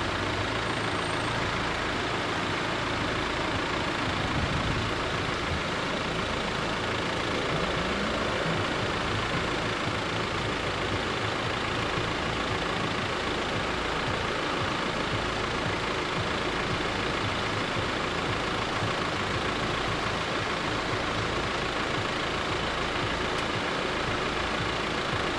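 Car engine idling at a closed railway level crossing, a steady unbroken running sound.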